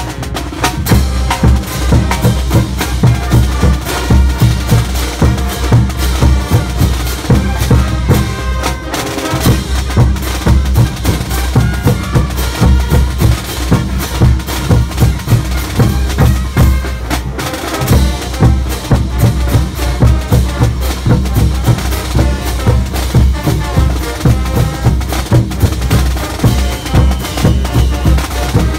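Percussion band of several large bass drums, clashing hand cymbals and a snare drum playing a fast, steady festival beat, with two short breaks in the drumming, about a third and just over halfway through.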